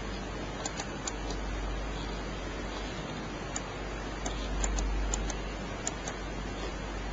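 About a dozen light, sharp clicks, consistent with a computer mouse, come irregularly and some in quick pairs. They sit over a steady hiss and a low hum of the recording.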